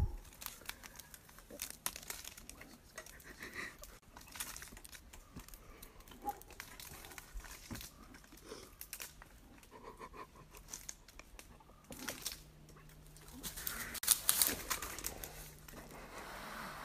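Scratching, rustling and scattered clicks as a black bear cub clambers up the tree and onto the tree stand close by. The loudest, busiest stretch of scraping comes about two-thirds of the way through.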